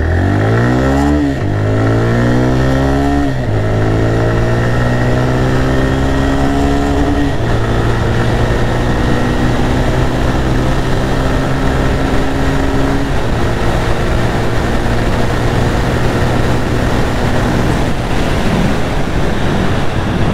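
TVS Raider 125's single-cylinder engine under full-throttle acceleration in Eco mode. The revs climb and drop back with each upshift: two quick shifts in the first few seconds, then ever longer, slower pulls through the higher gears. Wind rush builds with speed.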